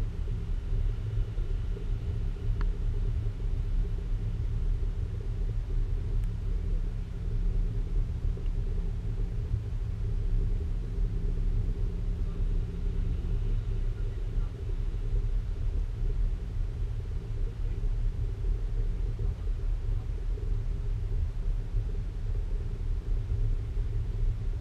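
Steady low rumble with a faint even hum, heard inside a cable car cabin as it travels along its cables.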